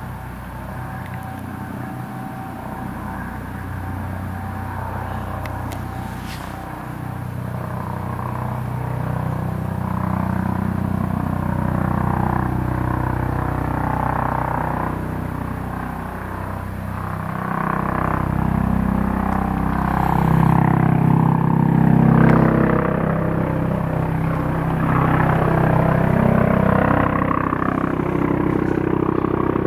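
Eurocopter EC155 rescue helicopter on its landing approach: the rotor and turbine noise grows steadily louder as it comes nearer.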